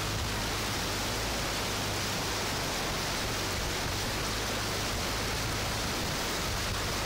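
Floodwater splashing and rushing against a vehicle as it drives through a flooded road: a steady, even wash of water noise, with a low steady hum from the vehicle underneath.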